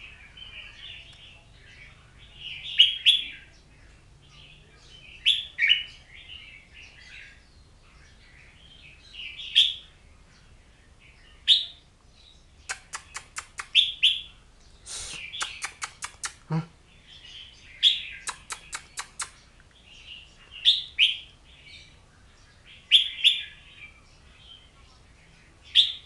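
A caged songbird ('kongbeng') singing short, chirpy song phrases, one about every two to three seconds. Around the middle comes a fast run of sharp ticks, several a second, for about four seconds.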